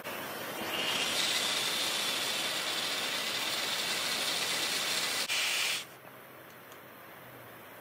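Steady hiss of a gas torch flame heating a steel rod. From about a second in until near six seconds, an electric arc at the rod's far end adds a louder, sharper hiss that cuts off suddenly.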